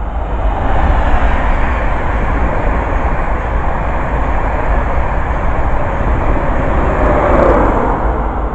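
Express passenger train passing at speed close by: a steady rush of wheels on rail and air, with a tone that falls in pitch near the end.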